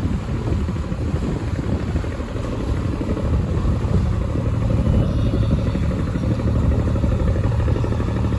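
Boat engine running steadily, a loud low drone with water and wind noise over it.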